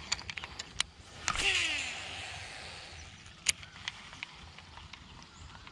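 Fishing reel spool whirring as line pays out during a cast. The whir starts suddenly about a second in and falls in pitch as it fades. A single sharp click comes a couple of seconds later, with faint scattered clicks around it.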